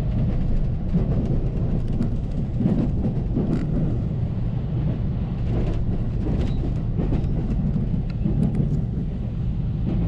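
Train running, a steady low rumble with scattered light clicks, which cuts off suddenly at the end.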